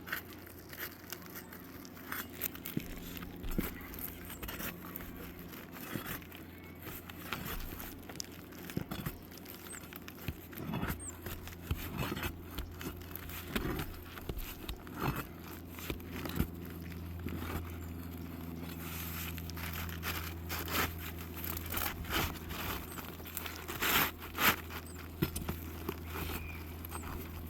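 Asphalt roof shingle being pried and worked loose, with irregular scraping, crinkling and sharp clicks that come more often and louder near the end, over a steady low hum. The shingle is brittle.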